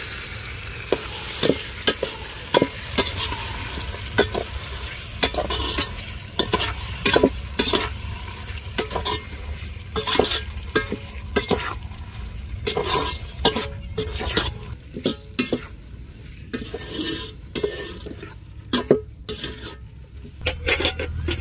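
Metal ladle stirring and scraping squid rings through masala frying in ghee in a metal pot: irregular scrapes and clinks against the pot, one or two a second, over a steady sizzle.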